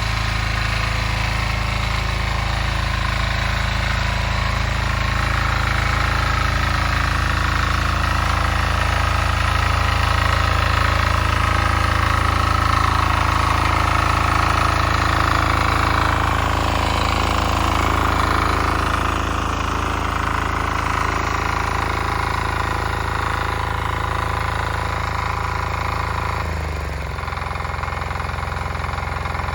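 Diesel walk-behind tractor engine (Weima motoblock) running steadily with a rattling clatter. About three seconds before the end its speed drops and it settles to a lower, slower idle.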